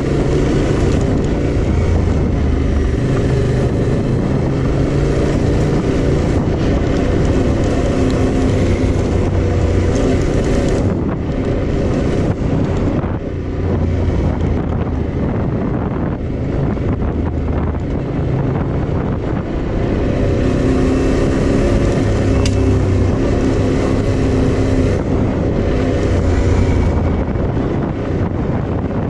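Yamaha Ténéré 700's 689 cc parallel-twin engine running under way, its pitch shifting in steps with throttle and gears and easing off briefly around the middle, with wind rushing over the microphone.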